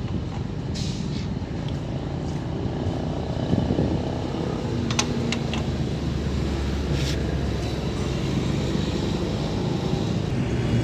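A car engine running steadily with a low rumble, with a few sharp metallic clicks about five seconds in.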